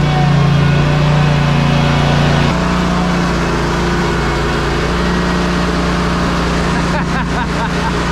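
Ready-mix concrete truck's diesel engine running steadily to turn the drum while discharging concrete, its pitch stepping down slightly about two and a half seconds in. A brief faint clatter comes near the end.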